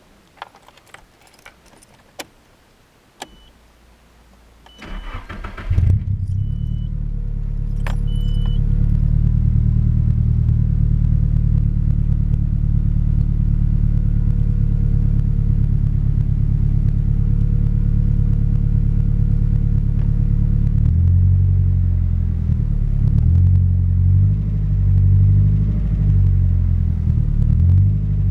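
Car engine: a few clicks and short beeps, then the starter cranks and the engine catches about six seconds in and idles steadily. From about 21 seconds on it is revved up and down several times, as the owner listens for a noise near 2000 rpm that he suspects is abnormal.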